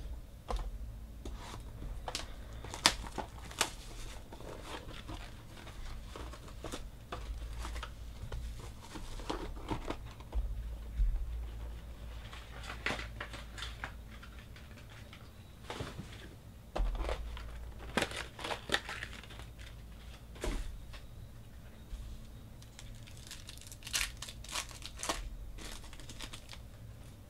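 Foil wrapper of a Luminance football card pack being torn open and crinkled by hand, along with the flick and slide of the cards being handled. It comes as clusters of sharp, irregular crackles and ticks with short lulls between them.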